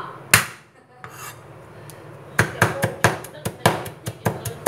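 A cleaver strikes a plastic cutting board once, hard, just after the start. From about halfway through it chops quickly and evenly, about five knocks a second, mincing peeled shallot cloves.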